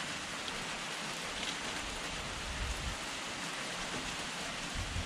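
Steady, even hiss like rain falling, with a couple of faint low thumps, about two and a half seconds in and near the end.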